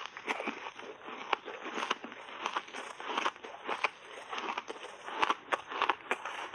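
Mouthfuls of shaved ice dusted with matcha powder being bitten and chewed close to a clip-on microphone: an irregular run of sharp crunches and crackles.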